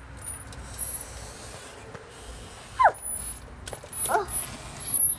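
A dog giving two short yelps that fall in pitch, about three and four seconds in, over a low background.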